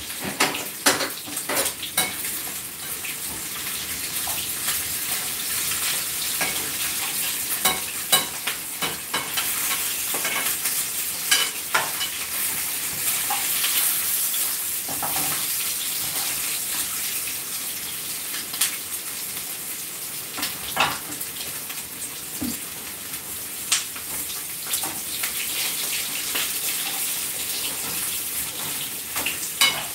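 Pork ribs sizzling as they fry in a frying pan, with frequent clicks and scrapes from a spatula stirring and turning them in the pan.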